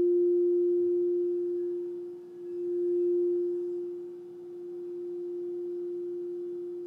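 Quartz crystal singing bowl ringing one steady, pure tone that swells and fades in loudness, dipping about two seconds in and again about four seconds in.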